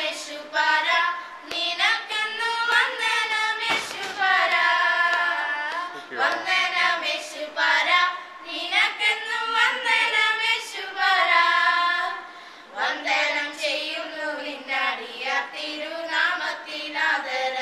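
A woman and young girls singing a Malayalam song together, unaccompanied, in long held melodic phrases with short breaks for breath.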